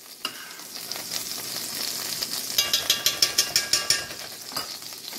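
Chicken fat sizzling as it melts in a hot cast-iron skillet. From about two and a half to four seconds in, a quick run of clicks, about eight a second: a utensil working the fat around the pan.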